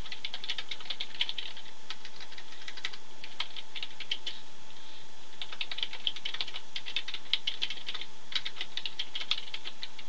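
Typing on a computer keyboard in quick runs of keystrokes, pausing briefly about four and a half seconds in and again near eight seconds.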